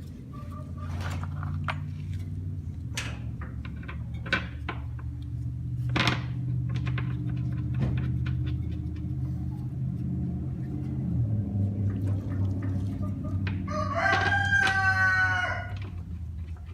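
A rooster crows once near the end, a single call of about two seconds. Under it runs a steady low hum, with scattered sharp clicks and knocks earlier on.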